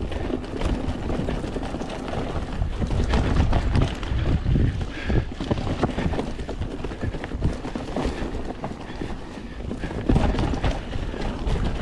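Mountain bike ridden down a rough woodland trail: a continuous clatter of tyres over dirt and roots and of the bike's chain and frame, full of sharp knocks, over a steady low rumble.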